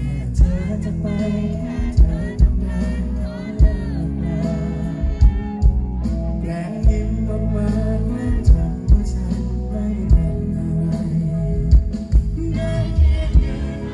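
Male singer singing into a microphone over live band music, with a strong, regular drum beat.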